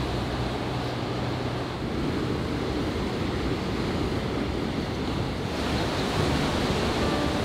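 Ocean surf washing in with wind on the microphone, a steady hiss that grows brighter and a little louder about five and a half seconds in.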